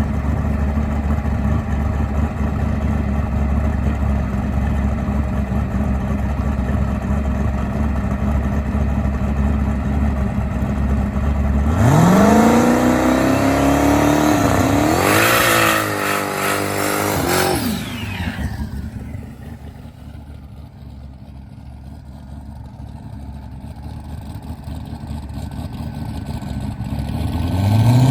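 A drag car's engine idling with a deep, steady rumble, then revving hard about twelve seconds in as the car launches. The pitch climbs, dips once at a gear change, climbs again, then falls away as the car moves off, and it grows louder again near the end.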